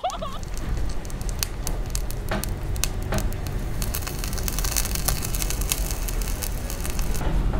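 Tiny meat patty sizzling in hot oil in a miniature frying pan, crackling with many small pops. The sizzle grows brighter and hissier for a few seconds past the middle. A low steady rumble runs underneath.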